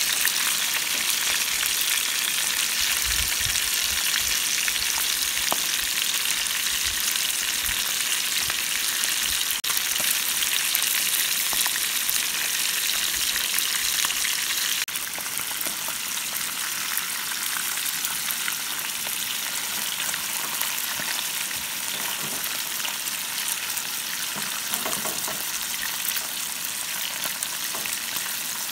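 Whole trout frying in a pan on a camp stove, a steady sizzling hiss that drops a little in level about fifteen seconds in.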